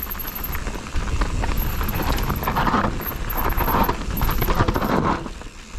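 Mountain bike clattering over rough trail at speed: tyres on dirt, and chain and frame rattling in a dense run of small irregular knocks.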